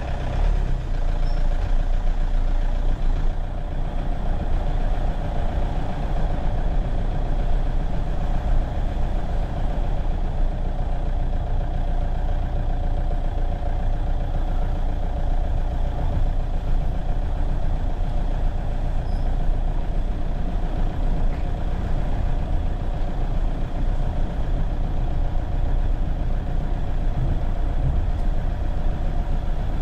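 A vehicle engine running steadily with road noise: a continuous low rumble that does not change through the stretch.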